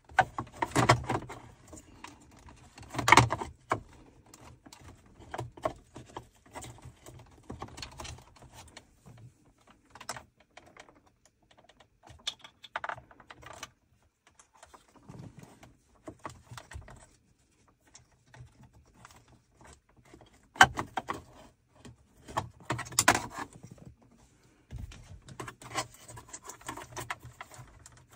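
Irregular clicks, taps and rustles of a charging cable being pushed and fished through the centre console's plastic trim by hand, with a few louder knocks.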